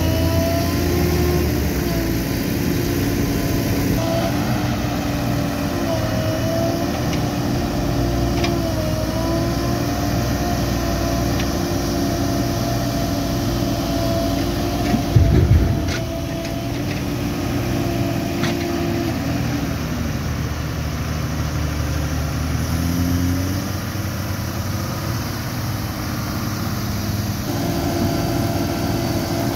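Diesel engine of a JCB 3DX backhoe loader running steadily, its pitch shifting with load; the note drops about two-thirds of the way through and rises again near the end. A loud, low thump comes about halfway through.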